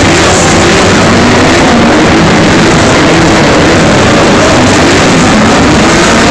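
A pack of Super GT race cars driving past, many engines running at once in a loud, unbroken mass of sound.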